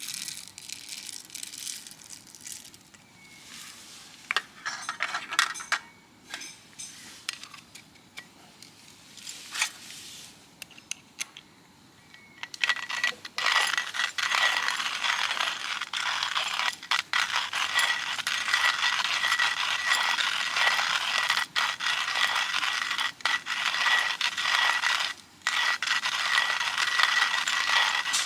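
Metal camping gear being handled: light clinks and scrapes, then a steady hiss about halfway through with more clinks over it.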